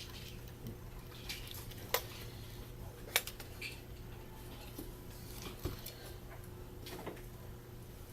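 Sharp clicks and light taps of small tools and parts being handled while a Canon EOS 60D camera is taken apart, with two louder clicks about two and three seconds in, over a steady low hum.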